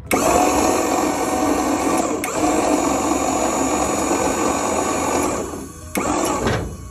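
Maxon liftgate's electric hydraulic pump motor running under load to raise the platform. It cuts out about five and a half seconds in, runs again briefly, then winds down with a falling pitch.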